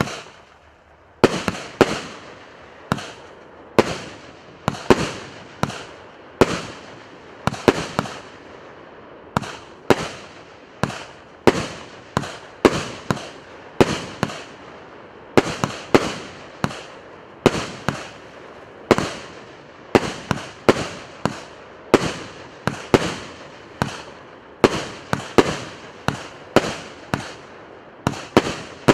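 A 1.2-inch, 48-shot consumer firework cake firing in quick succession: a sharp report about every half-second to second, each trailing off, with a hiss between them. After the first shot there is a short gap of about a second before the steady firing begins.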